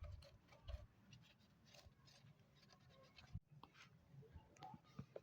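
Near silence, with faint scattered scratching and a few light taps.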